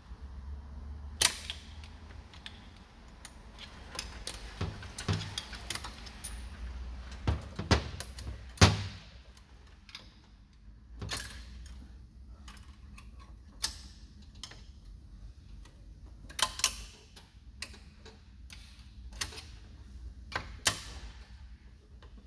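Irregular metallic clicks and clinks of a hand tool and parts knocking against a JF506E automatic transmission's aluminium case during reassembly, a string of separate sharp ticks with the loudest knocks about 1, 7.5 and 9 seconds in.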